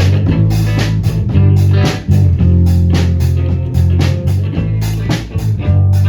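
A rock band playing live: electric guitar and bass guitar with a drum kit keeping a steady beat, no vocals.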